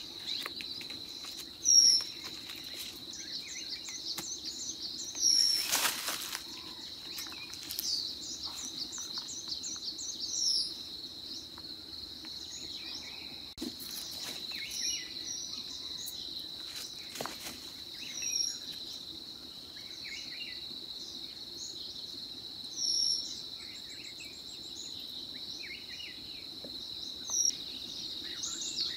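A steady, high-pitched insect drone, with a small bird chirping every few seconds and a quick run of repeated notes early on. A few short rustles of dry leaves underfoot come and go.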